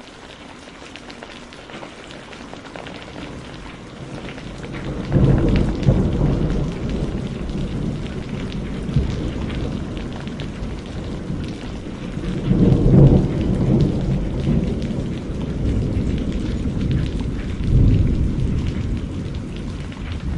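Steady rain with rolling thunder: three long low rumbles, the first breaking in about a quarter of the way through, the loudest near the middle and another near the end.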